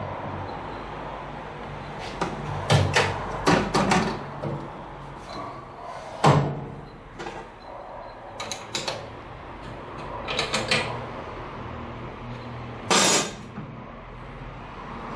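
Irregular knocks and clatters of hard parts being handled and set down, with a short scraping slide about 13 seconds in, over a low steady hum.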